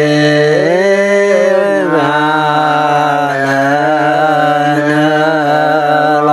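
A man's voice chanting a Karen poem (hta) in long held notes. The pitch steps up for about a second near the start, then drops back and holds.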